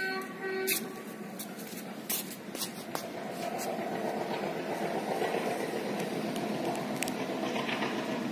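A steady rumbling vehicle noise that slowly grows louder, with a few light clicks over it.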